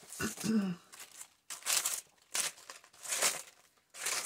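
Dry, crunchy autumn leaves crinkling as they are handled and pressed onto a paper page, in several short bursts. There is a brief hum of a voice about half a second in.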